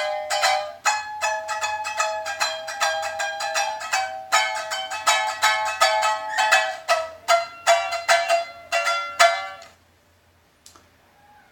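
Asonu Honu Tahitian ukulele, eight fishing-line strings in doubled G-C-E-A courses, strummed in a quick steady rhythm with a very bright, ringing tone. The strumming stops about nine and a half seconds in and the last chord rings out.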